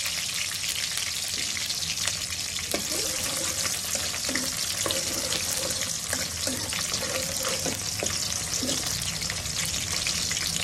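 Oil sizzling and crackling steadily in an aluminium kadai as a tempering of dried red chillies, curry leaves and shallots fries. A metal spoon stirs through it partway along.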